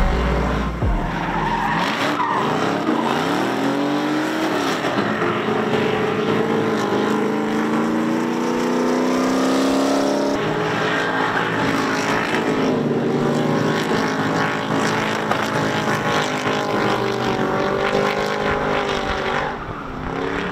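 Car engine revving, its pitch rising and falling over and over, while the tyres squeal and skid on the track surface.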